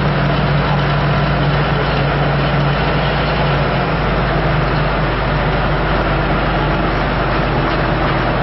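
An engine idling steadily: a constant low hum under an even wash of outdoor noise.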